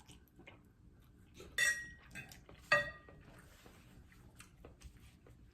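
Eating utensil clinking twice against a dish while noodles are eaten, each strike ringing briefly, about a second apart, with a few faint clicks around them.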